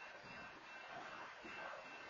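Freight train of tank cars rolling past, wheels running over the rails with irregular low knocks and a faint steady high tone, heard through a security camera's microphone.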